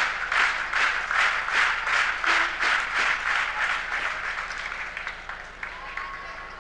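Arena crowd clapping in unison, about three claps a second, after a point is won; the clapping fades away over the last couple of seconds.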